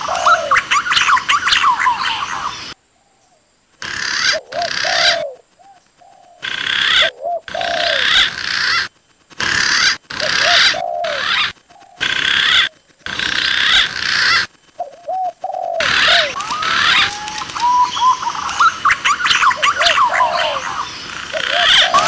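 A bird-lure recording of spotted doves cooing, answered by green pigeon calls, over a dense chirping of other birds. Between about 3 and 16 seconds in the recording is chopped into short pieces, with abrupt cuts and brief silent gaps.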